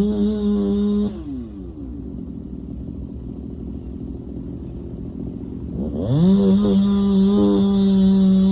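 Two-stroke chainsaw running at high revs, dropping to idle about a second in, then revving back up to full throttle about six seconds in.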